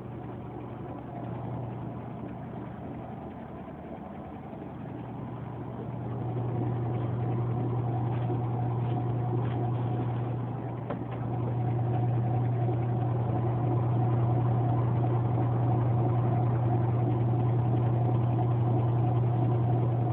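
Steady motor hum, growing louder about six seconds in and again about eleven seconds in.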